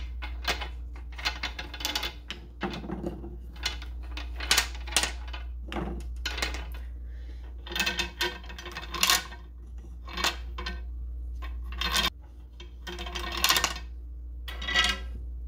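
Painted wooden beads on a bead-maze toy's wire loops clicking and clattering against one another as they are pushed along and drop, in an irregular run of sharp clacks.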